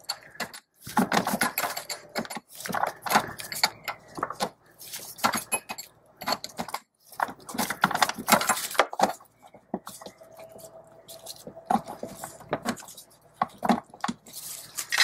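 Steel wrench clinking and scraping against the flare nut of a clutch master cylinder's hydraulic line as it is worked loose, in irregular bursts of small metallic clicks.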